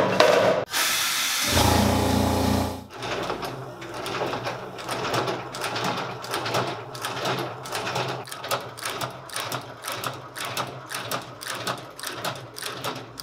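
A loud rushing noise for about two seconds near the start, then a stitching machine running with a rapid, even clicking over a steady motor hum.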